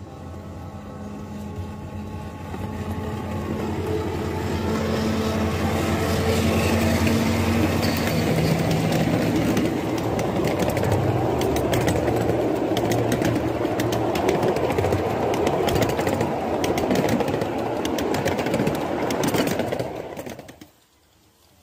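Ride-on miniature train passing close by: the diesel-outline locomotive's motor hums steadily as it approaches and grows louder, then the string of cars rolls past with a rumble and rapid clicking of wheels on the rails. The sound cuts off suddenly near the end.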